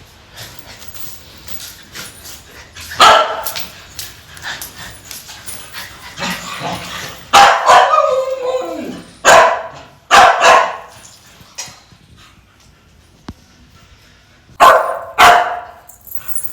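A dog barking in separate short bouts: one bark about three seconds in, a longer run in the middle, single barks near ten seconds, and two more near the end.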